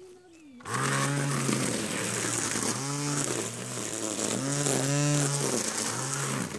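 Small engine of a handheld power yard tool starting up loud about a second in, revving up and down several times, then cutting off suddenly near the end.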